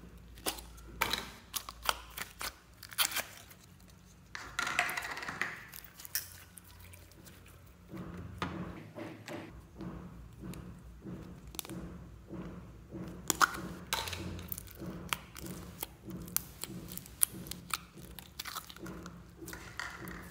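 Slime being handled over a glass bowl: plastic slime tubs turned and opened, then clear glitter slime squeezed by hand, giving many sticky clicks and crackling pops.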